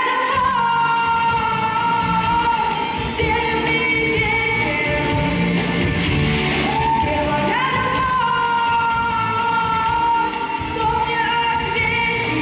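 Female vocalist singing long held notes, sliding up into each one, over a folk-rock band.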